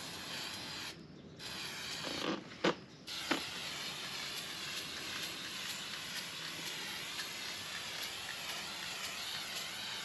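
Aerosol can of Fluid Film rust-inhibitor spraying in a long, steady hiss. The spray breaks off briefly about a second in, and again between about two and three seconds in, where a few sharp clicks sound.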